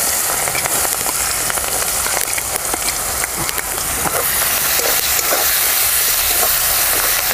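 Chopped onions sizzling in hot mustard oil in a kadai, a steady loud hiss with small crackles, and a spatula stirring them near the end.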